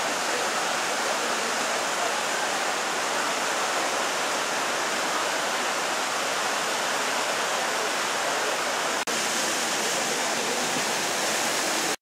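Rio Horcones rushing steadily over and between granite boulders in small cascades. The sound cuts out for an instant about nine seconds in.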